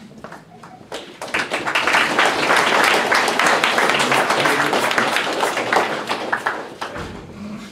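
Audience applauding: many hands clapping, swelling about a second in and dying away near the end.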